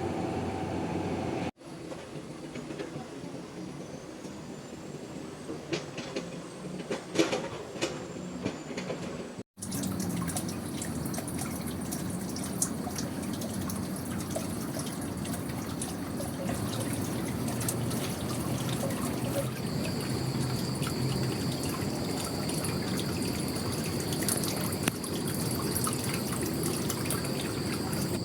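Ambient sounds spliced together with abrupt cuts: water trickling with scattered drips, then a steady wash of noise that a high, even insect drone joins about twenty seconds in.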